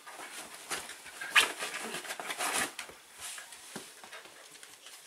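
Shetland sheepdogs moving and jostling about, with scuffling noises and one sharp, sudden sound about a second and a half in. The noises die down after about three seconds.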